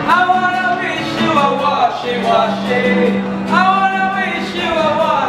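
A man singing to strummed acoustic guitar, a hand-washing song performed at a handwashing station.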